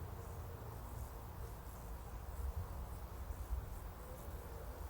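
Quiet outdoor ambience in a rural spot: a steady low rumble with faint insect sounds.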